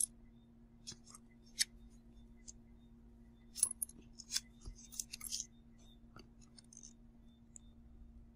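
Handling noise from a leather handbag, its tissue-paper stuffing and gold-tone zipper hardware: scattered short, crisp clicks and crinkles, busiest in the middle. A faint steady hum runs underneath.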